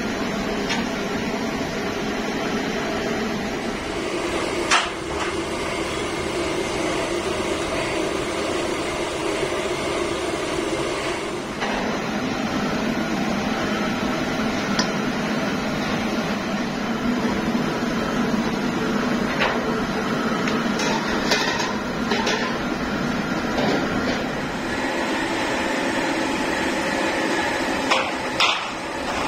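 Steady hum of workshop machinery, with occasional sharp metallic clinks as wire hooks and metal tractor air filter housings are hung on a rack's metal bars. The clearest clinks come about five seconds in and twice near the end.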